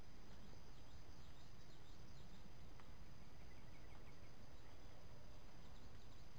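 Woodland ambience: a steady high insect drone, with birds chirping in short runs in the first half and again near the end, over a constant low rumble.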